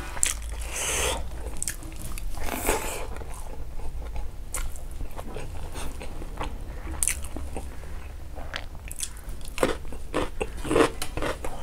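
Close-up eating sounds of a person chewing mouthfuls of rice by hand: irregular wet mouth smacks and chewing clicks, with fingers now and then scraping rice across a metal plate.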